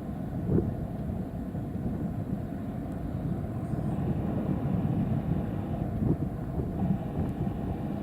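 Jet airliner engines rumbling in the distance, a low, uneven rumble.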